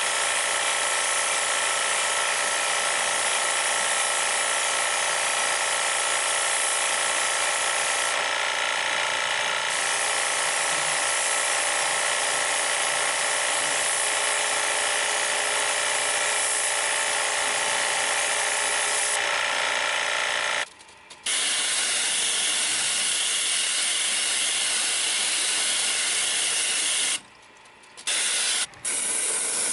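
Air-conditioner cleaning sprayer running steadily with a loud hiss of spray over its motor's whine, cutting out briefly three times in the latter part.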